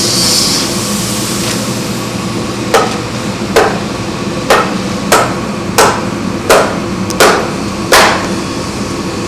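Eight hammer blows, a little under a second apart, starting about three seconds in, as a steamed wooden plank is worked into place on a ship's hull. A steady mechanical hum runs underneath.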